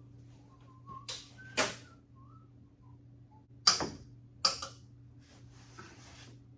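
Sharp metallic clanks of hand tools during an engine teardown, three of them, the loudest two past the middle. A man whistles a few soft, wavering notes in the first two seconds over a steady low hum.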